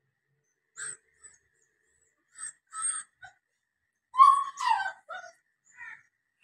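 Bully kutta puppy whining in a string of short, high-pitched whimpers, the loudest about four to five seconds in.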